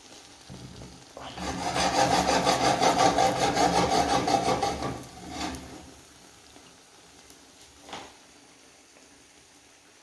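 A fast, evenly pulsed rasping scrape lasting about four seconds, starting about a second in, then a brief second scrape and a single light tap.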